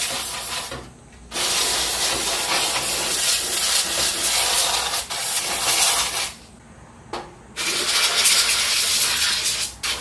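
Aerosol contact cleaner sprayed through its straw nozzle into an open desktop PC, cleaning the connections. A short hiss, then a long spray of about five seconds, then after a pause a second spray of about two seconds.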